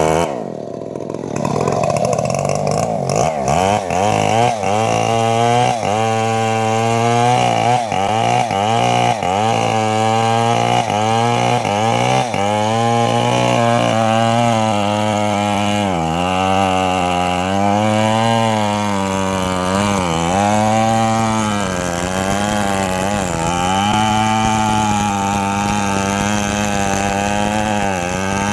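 Petrol-engined saw cutting teak wood. The engine's pitch sags and recovers over and over as it bogs under the load of the cut, with a deep dip about a second in.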